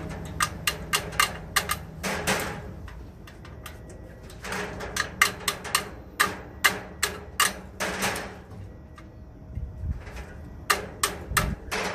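Hand come-along cable puller (a Steel Core 4-ton cable winch) clicking in runs of sharp, quick clicks as its cable is drawn out with the release trigger held. There are three main runs: near the start, in the middle, and near the end.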